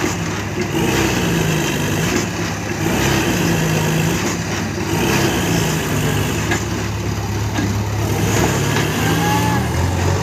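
Heavy diesel engine running steadily, its pitch swelling and sinking every second or so.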